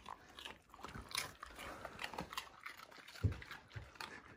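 Huskies playing up close: quick scuffling, sniffing and mouthing sounds of dogs nosing and play-biting, with a low thump a little over three seconds in.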